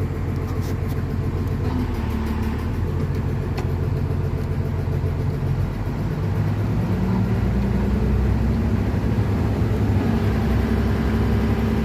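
Diesel engine of a Volvo excavator, repowered with a Cummins, running steadily; about seven seconds in its note rises slightly and it gets a little louder.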